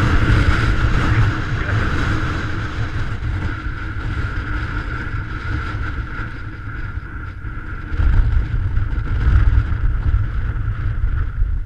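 Strong wind buffeting the microphone in loud, gusting rumbles, with the gusts swelling again about eight seconds in.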